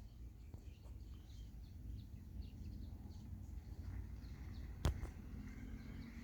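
Faint background noise with a low rumble and scattered faint high chirps, and a single sharp click about five seconds in.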